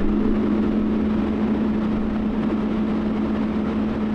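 Excavator's diesel engine running at a steady speed, a constant drone.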